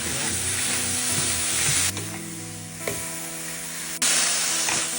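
Food sizzling in hot oil in a pan while being stir-fried, a steady frying hiss that changes level abruptly about two and four seconds in.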